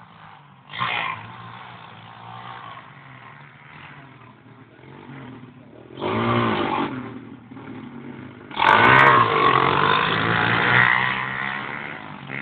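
Mini motorbikes running on a grass lawn, their small engines rising and falling in pitch as they rev. The sound swells three times: briefly about a second in, again around six seconds, and longest and loudest from about eight and a half seconds to near the end.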